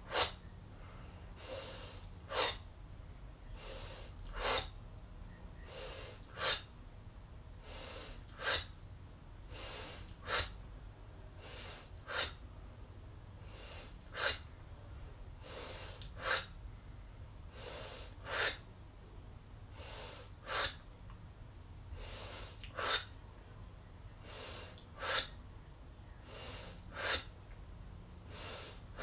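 A woman doing rhythmic belly-pumping breathwork: a short, forceful exhale through the mouth as the belly is pulled in, about every two seconds, with quieter inhales through the nose between.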